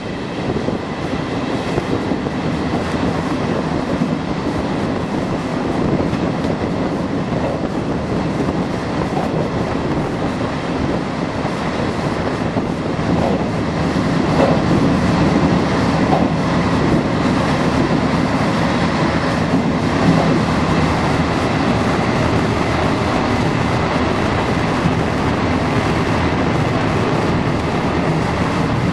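Passenger train running at speed, heard at an open coach window: a steady rumble of wheels on the rails, growing a little louder about halfway through.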